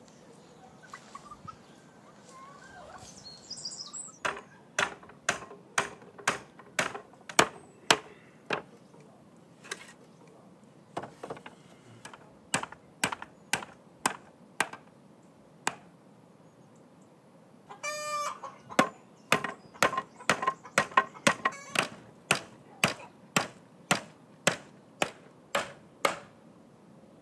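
Hammer driving nails into wooden slats: steady blows about two a second, in two long runs with a short pause between them. Poultry call briefly near the pause.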